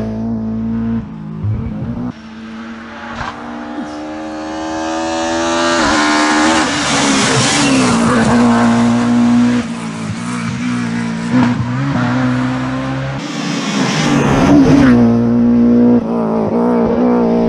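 Rally car engines at full throttle as cars pass at speed, the engine note climbing steeply in pitch through the revs and holding high between climbs, with the sound jumping abruptly where the clips change.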